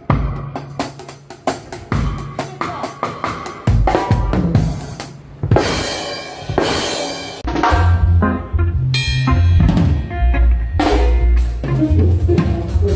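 Drum kit played for a reggae one-drop sound check: quick runs of snare and tom strokes, with a cymbal wash around six seconds in. From about seven and a half seconds, deep bass notes come in under the beat.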